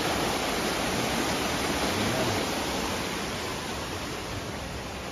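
Steady rushing noise of water, easing off slightly toward the end.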